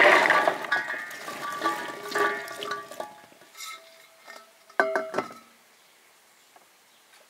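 Liquid poured into a glass jar for about three seconds, the glass ringing as it fills, then a few sharp glass clinks about five seconds in.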